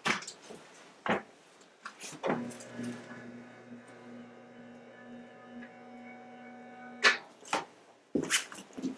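A small electric motor hums steadily for about five seconds, starting and stopping abruptly. Knocks and clicks from a treatment table come before and after it as a person shifts onto their side, the loudest knock just after the hum stops.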